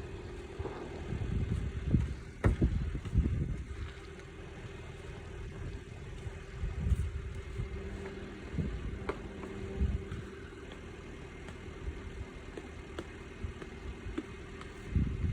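Car engine idling steadily, with low rumbling and a few thumps, the loudest about two to three seconds in.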